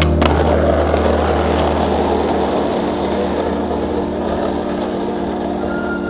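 Skateboard wheels rolling over concrete pavement, starting with a clack of the board landing, over a steady music drone. A steady high tone comes in near the end.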